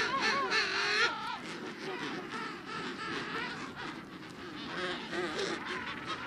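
Penguins calling: a loud, wavering call that ends about a second in, followed by fainter overlapping calls from the colony.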